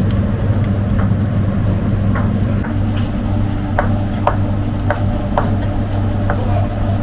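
Kitchen knife chopping tomatoes on a plastic cutting board: sharp, uneven taps, one or two a second, starting about two seconds in. Under it runs a steady low hum.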